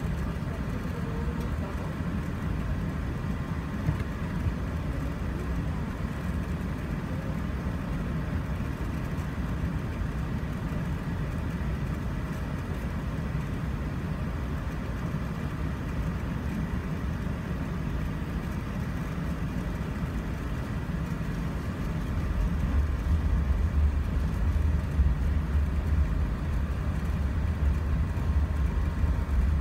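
Cabin noise of an Airbus A380 taxiing, heard from a window seat over the wing: its Rolls-Royce Trent 900 engines running with a steady low rumble from the rolling aircraft. About two-thirds of the way through, a deeper rumble comes in and the sound grows louder.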